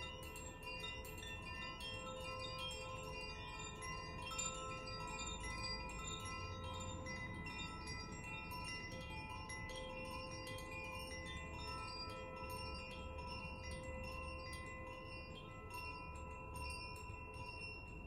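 Hand-held Koshi and Zaphir chimes swayed so their inner rods are struck over and over, giving a continuous wash of overlapping ringing tones with constant light tinkling.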